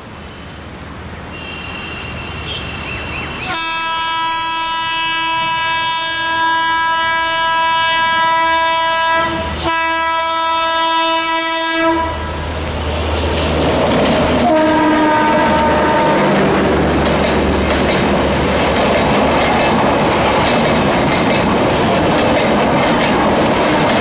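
WAP-7 electric locomotive sounding its multi-tone horn in one long blast of about eight seconds, with a brief break near the end, then a short second blast as it draws close. The locomotive and its double-decker coaches then rumble past, wheels clattering over the rail joints.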